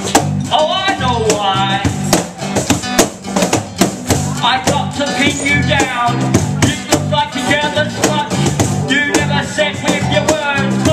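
A live band of strummed acoustic guitar, electric bass and a hand drum plays under a rapper's amplified vocal delivered in fast phrases. Sharp drum strikes keep a steady beat.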